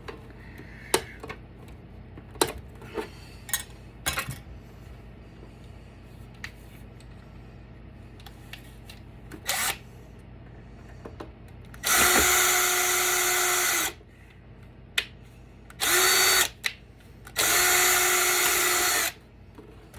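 Power drill running in three short bursts, backing screws out of a battery backup's case, the last one the longest. Before them come scattered light clicks and knocks of parts being handled.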